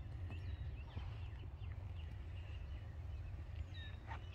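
Birds chirping in short calls and brief whistles over a steady low rumble.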